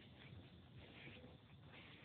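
Near silence: faint background noise with a few soft scratchy rustles.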